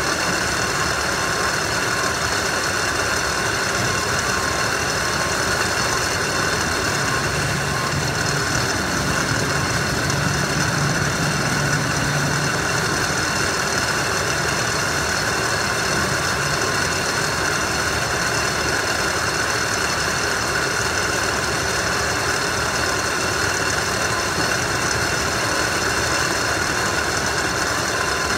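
Steady mechanical drone of warehouse powered conveyor lines running, with several steady high whines on top and a low hum that swells for a few seconds about a third of the way in.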